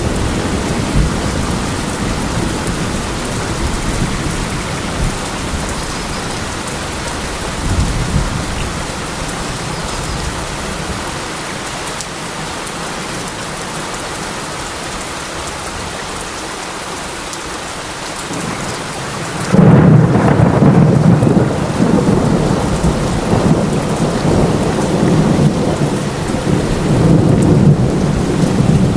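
Steady heavy rain with thunder. A low rumble fades away over the first half, then about two-thirds of the way through a sudden loud crack of thunder breaks and rumbles on unevenly to the end.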